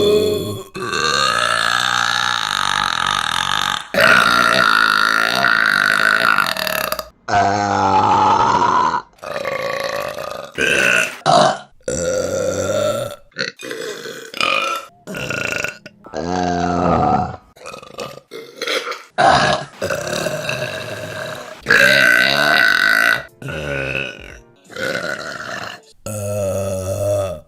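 Women burping loudly, one burp after another with abrupt cuts between them. Several long, drawn-out burps with a wavering pitch last two to three seconds each, and a run of many shorter burps comes in the middle.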